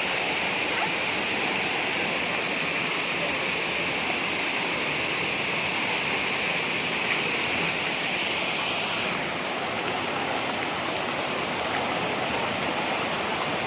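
Waterfall: steady, unbroken rushing of falling water.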